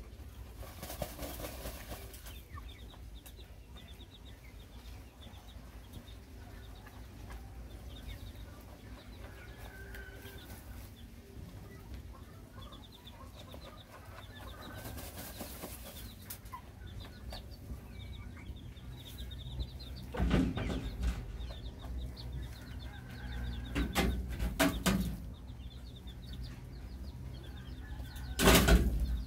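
Chickens in a pen clucking, with rapid high-pitched peeping from young birds through much of the time. Several loud bursts of wing flapping break in, the loudest near the end.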